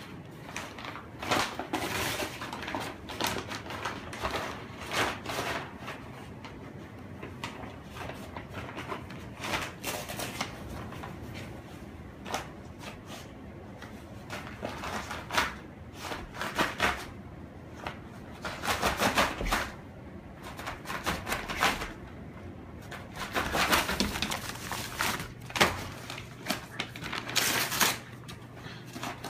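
Brown paper grocery bag crinkling and ripping in irregular bursts as a Siberian husky bites, shakes and tears it apart.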